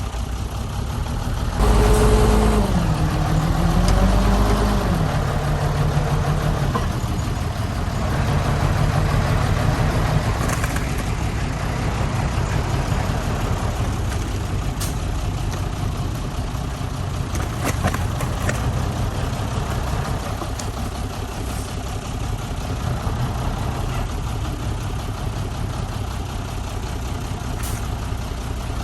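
Heavy diesel engines of earthmoving machinery running. About two seconds in, one revs hard under load, its pitch dipping and then rising again, before it settles back into a steady run with a few sharp knocks.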